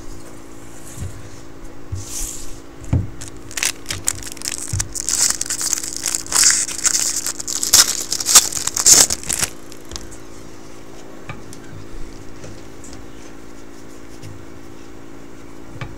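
Wrapper of a Topps football jumbo card pack crinkling and tearing as it is opened: a run of crackly rustles and snaps that builds about two seconds in, is loudest from about five to nine seconds, then stops.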